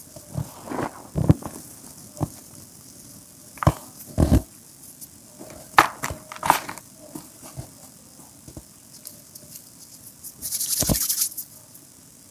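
Hands crushing and crumbling broken gym chalk reforms: irregular dry crunches and crumbles of chalk lumps and powder. About ten and a half seconds in comes a longer dry rustle of powder.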